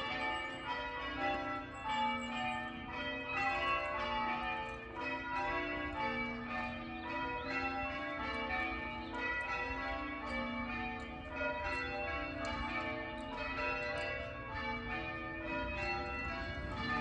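Church bells rung in changes: a ring of tower bells struck one after another in quick succession, their tones overlapping and sounding without a break.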